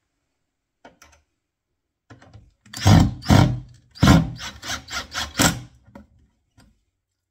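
Cordless drill/driver driving a screw through a hinge mounting plate into the side of a kitchen wall unit: after a few faint clicks, a run of short loud bursts of the drill starting about two seconds in and stopping about six seconds in as the screw seats.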